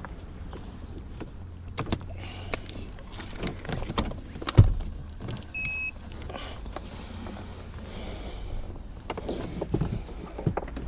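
Handling noises from fetching and carrying tools: scattered clicks, knocks and rustling, with one heavy thump about four and a half seconds in and a short electronic beep about a second after it.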